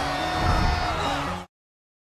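Film soundtrack music with held, stepping notes that cuts off suddenly about one and a half seconds in.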